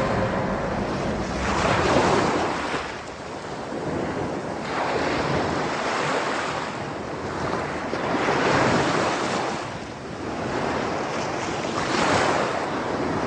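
Sea waves washing onto a shore, the surf swelling and falling back about every three seconds, four surges in all.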